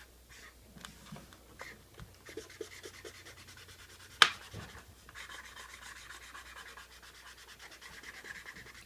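Colouring tool scribbling on a paper plate: a steady, scratchy rubbing of quick back-and-forth strokes, with a single sharp tap a little past four seconds in.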